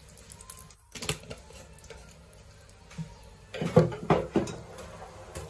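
Clinks and knocks of kitchen utensils against a metal kadai on a gas hob: a couple of single clicks, then a short cluster of clattering knocks about four seconds in.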